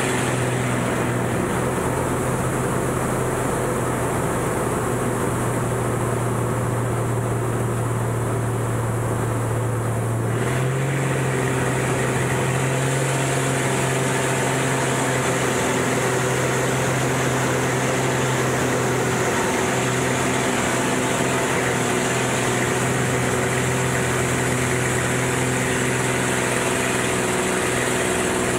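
Aerobatic plane's piston engine and propeller droning steadily, heard from inside the cockpit. About ten seconds in, the engine note steps up slightly and the rushing hiss grows.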